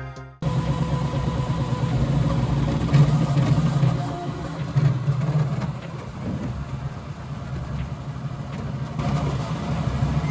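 Bambu Lab P1S 3D printer running a print at ludicrous speed: a steady mechanical hum from its motors and fans, wavering in loudness as the toolhead moves. Background music cuts off right at the start.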